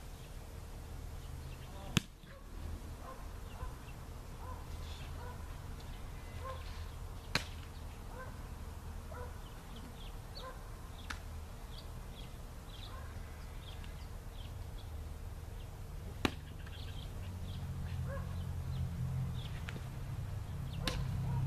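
Small birds chirping over a low outdoor rumble, broken by three sharp knocks about two, seven and sixteen seconds in; the first is the loudest.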